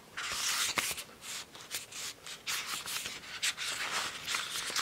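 Pages of a thick paperback booklet being flipped one after another by hand: a run of papery swishes with a few sharp flicks.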